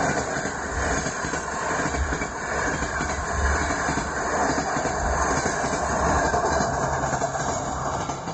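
A train running along the rails: a steady rumble with the clatter of the wheels.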